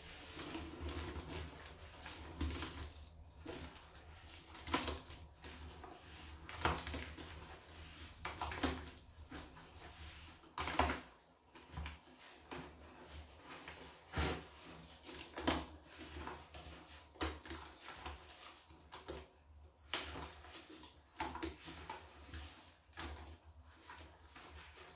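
Rubber-gloved hand scrubbing the inside of a small garbage can with a sponge: irregular rubbing and scraping strokes, some sharper than others.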